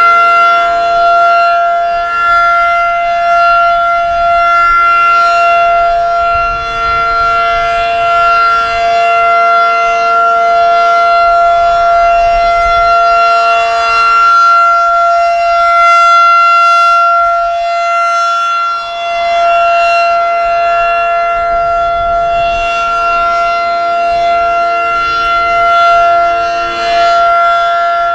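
Federal Signal 2001-SRN rotating tornado siren sounding its Alert signal, a loud steady tone that holds one pitch. It grows softer and duller about halfway through as the rotating horn turns away, then swells back.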